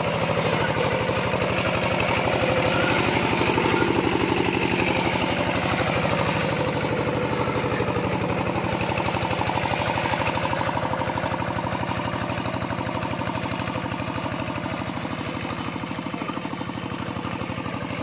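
Single-cylinder diesel engine of a two-wheel hand tractor running steadily under load as it churns through a flooded rice paddy, a fast even chugging. It grows slightly fainter near the end as the tractor moves off.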